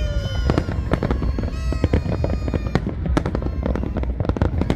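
Fireworks display going off continuously: rapid, irregular bangs and crackles over a constant deep rumble of launches and bursts.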